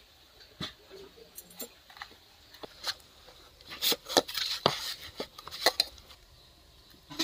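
A hand mixing gram-flour (besan) batter in a stainless steel bowl, with irregular taps and clicks against the metal that get busier in the second half.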